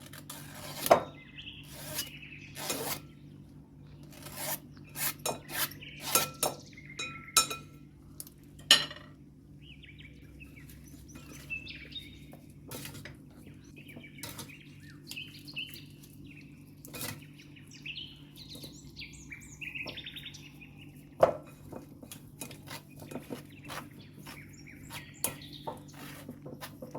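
Kitchen utensils clinking and knocking against dishes and a pan in irregular strikes while food is prepared, with birds chirping faintly in the background.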